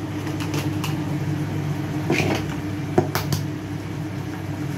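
Steady mechanical hum of a kitchen appliance, with about half a dozen sharp clinks of cooking utensils, the loudest about three seconds in.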